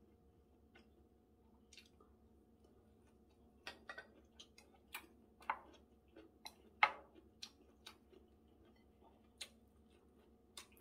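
A person eating close to the microphone: faint chewing with about ten sharp, irregular clicks and smacks, starting a few seconds in, over a faint steady hum.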